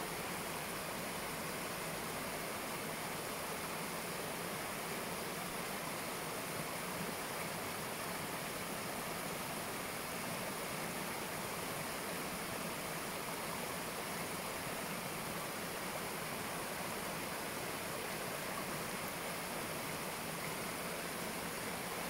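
Shallow stream water rushing and splashing over a low rocky cascade, a steady, unchanging rush.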